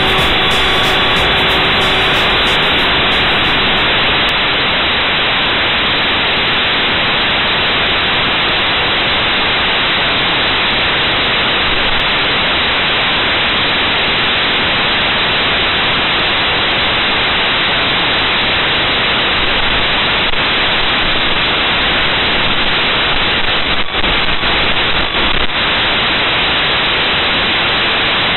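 Steady loud hiss of white-noise static, the sound of an analog FPV video receiver's DVR recording, with a few brief dips about 24 seconds in. Faint music fades out in the first couple of seconds.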